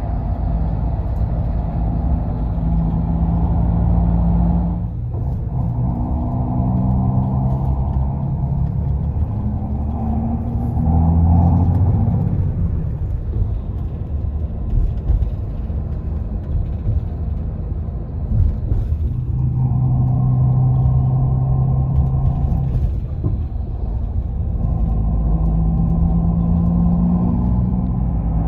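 Bus engine and road noise heard from inside the passenger cabin on a highway: a steady low rumble with the engine's pitch rising and falling as the bus changes speed. The sound changes abruptly a few times.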